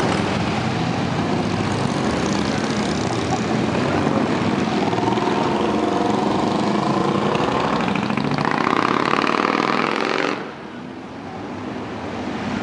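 A procession of motorcycles, mostly Harley-Davidson V-twins, riding past one after another with engines running, one rising in pitch as it accelerates. About ten seconds in the sound drops suddenly, then builds again as more bikes come closer.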